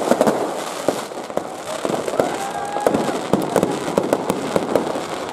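Fireworks and firecrackers going off: a dense, irregular run of sharp cracks and pops over a continuous crackling hiss.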